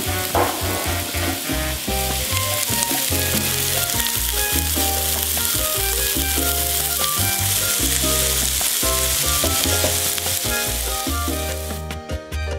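Diced onion sizzling as it fries in oil in a skillet, stirred with a spatula, over background music with a steady bass line. Near the end the sizzle stops and only the music remains.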